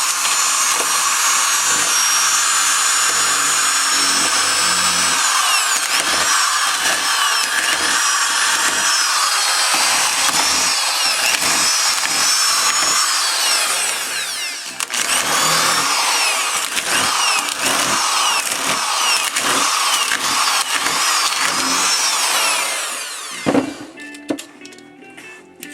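Electric hammer drill running hard against a laptop LCD panel, its pitch wavering up and down. It dips briefly about halfway, runs on, then stops near the end with one sharp knock.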